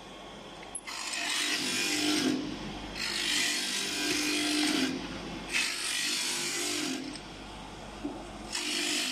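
Motorcycle brake shoe side grinding machine grinding brake shoes as they are fed past the wheel: four rasping grinds of about one and a half to two seconds each, with the machine running more quietly in between.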